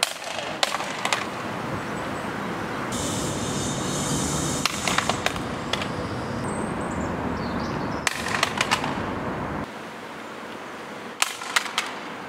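A cheap plastic-cased handheld multimeter dropped onto paving stones in a drop test, hitting with a sharp clatter and bouncing; this happens about five times, a few seconds apart, over a steady hum of traffic.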